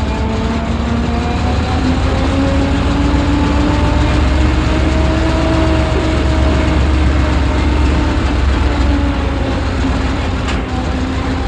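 A 1968 tank's engine ticking over, heard from inside the hull: a steady, loud, low running with a hum whose pitch rises slightly a couple of seconds in and then holds. A single sharp click comes near the end.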